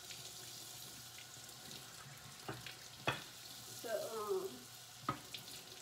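Kitchen faucet running steadily, water splashing onto a bamboo board held under the stream, with a few sharp knocks as the wooden board is handled in the sink.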